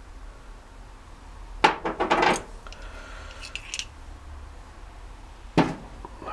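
Small steel gearbox parts clinking as they are handled and set down on a steel bench: a quick cluster of clinks and rattles about one and a half seconds in, then a single sharp clink near the end.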